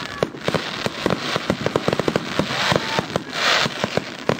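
Aerial fireworks bursting: a dense, irregular run of sharp crackling pops, with a short rush of hiss about three and a half seconds in.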